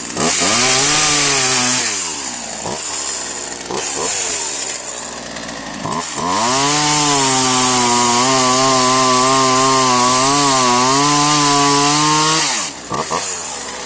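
Two-stroke gasoline chainsaw revving hard at the start and dropping back about two seconds in. About six seconds in it revs up again and is held at high speed for roughly six seconds, its pitch dipping slightly, before it is let off near the end.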